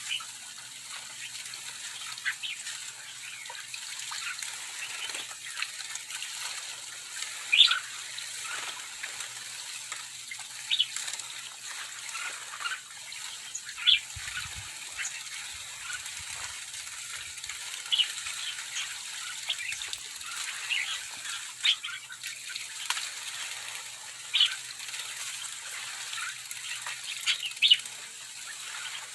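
A flock of sooty-headed bulbuls bathing: scattered short chirps from many birds, some louder than others, over a steady hiss of splashing water and flapping wings.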